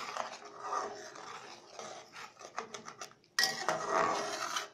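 Metal ladle stirring a thick gravy in a stainless steel kadhai, scraping and clinking against the pan. The scraping gets louder about three and a half seconds in and stops abruptly at the end.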